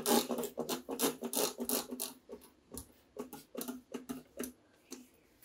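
Trigger spray bottle squirting cleaner onto a mixer grinder's plastic body in quick repeated sprays: several a second for the first couple of seconds, then more spaced out.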